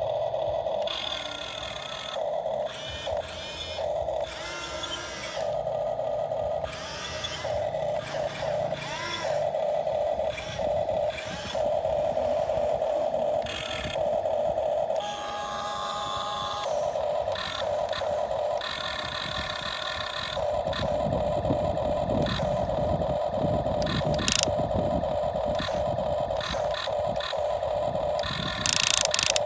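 Radio-controlled model excavator's hydraulic pump motor whining in repeated spurts, cutting in and out as the boom, arm and bucket are worked. About two-thirds of the way through, a rough grainy scraping comes in as the bucket works the sand.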